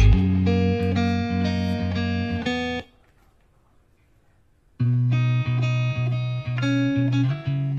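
Background music of plucked string notes. It breaks off about three seconds in and starts again about two seconds later.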